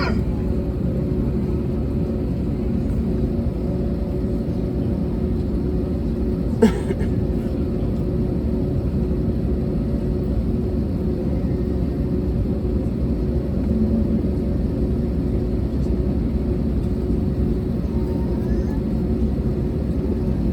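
Steady low rumble and hum inside an Airbus A320neo cabin: the Pratt & Whitney PW1100G engines at low power with the air conditioning, the aircraft taxiing or holding before takeoff. A single sharp click about six and a half seconds in.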